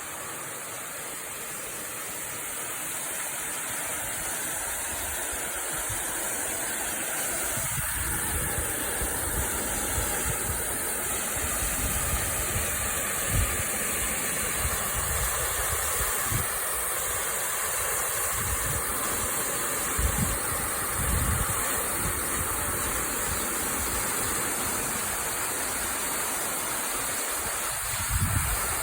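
Water of a partly frozen waterfall falling into its plunge pool: a steady rush that grows louder over the first several seconds. Scattered low thumps sound under it.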